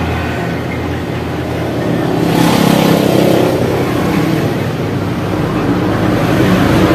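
Road traffic on a nearby highway: a motor vehicle's engine running steadily with a low hum, and a louder swell of passing-traffic noise about two seconds in.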